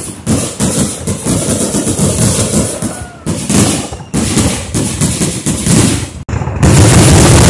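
Fireworks going off in rapid, overlapping bangs and crackles. After a brief lull near the end, they merge into a dense, unbroken barrage.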